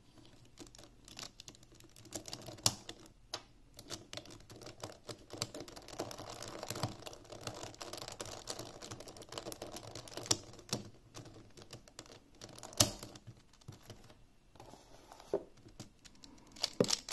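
Plastic clicks and snaps of a 57mm Dayan ZhanChi 3x3 speedcube being put back together and turned: a corner piece pushed back into place, then layers turned, with scattered sharp clicks and a stretch of quicker, denser clicking in the middle.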